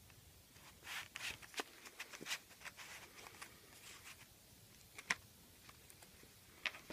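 Faint paper rustling and a few sharp clicks as a hand-made paper picture book and its cut-out flaps are handled, with a cluster of rustles in the first seconds and two single clicks later on.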